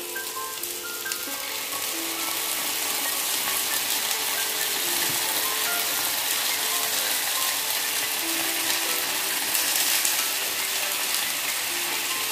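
Sliced sausage sizzling in a hot wok pan on a gas stove as sauce is poured over it, a steady crackling hiss that grows louder over the first couple of seconds. Soft melodic background music plays under it.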